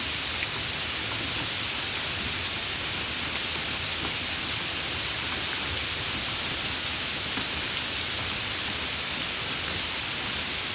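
Steady gentle rain falling, an even hiss with a few faint drop ticks.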